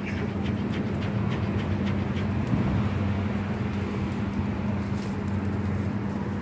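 A steady low hum over a continuous wash of noise, with faint scattered crackling ticks from a wood fire burning in a small metal grill.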